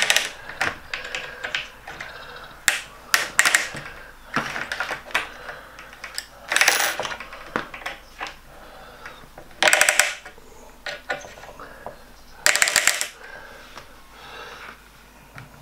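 Small metal parts clicking and scraping against an aluminium track-saw guide rail as they are fitted and slid along its slot. There are many short ticks and three louder half-second scrapes, about seven, ten and thirteen seconds in.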